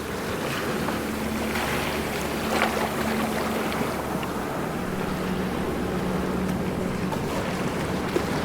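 Ocean waves washing and splashing in a continuous rush, swelling briefly about two and a half seconds in, with a faint steady low hum underneath.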